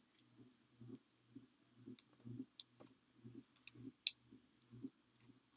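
Near silence with a few faint, sharp clicks and light rustling as hands handle small paper flowers and stickers on a paper scrapbook page.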